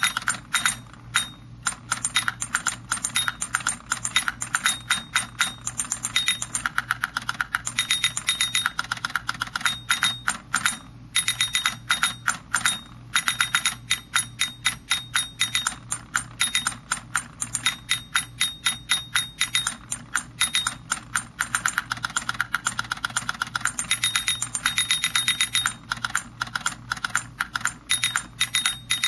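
Caveman drummer alarm clock toy going off: the motor-driven caveman figures tap their sticks rapidly on the toy's plastic drums, cymbal and log in quick clattering runs, with a steady low hum underneath.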